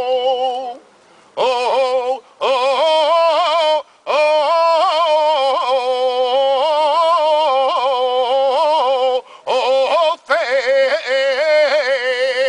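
A saeta: one unaccompanied voice singing the flamenco Holy Week lament in long, wavering, heavily ornamented phrases, with a few short pauses for breath.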